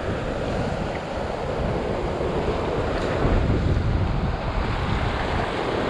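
Ocean waves breaking and washing over a rock ledge, with steady wind buffeting the microphone and adding a low rumble.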